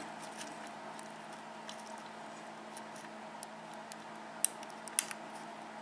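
Faint, sparse metallic ticks of a small lock pick working the pin stack of an Abus 72/40 padlock during single-pin picking, with two sharper clicks near the end. A steady faint hum runs underneath.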